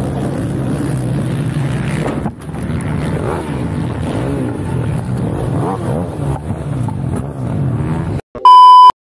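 Several quad (ATV) engines revving together in a racing pack, their pitches rising and falling. The engines cut off suddenly about eight seconds in, followed by a short, very loud electronic beep.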